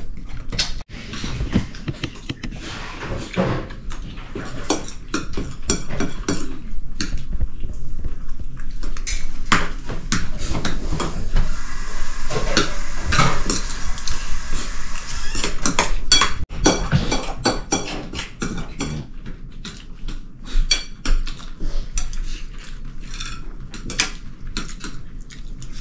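Dishes and cutlery clinking and knocking together in many quick, irregular clicks, with a steady hiss for a few seconds midway through.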